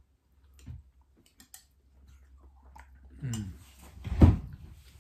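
Spoons clicking against soup bowls, with quiet chewing. A brief falling voice sound comes about three seconds in, and a loud short thump just after it.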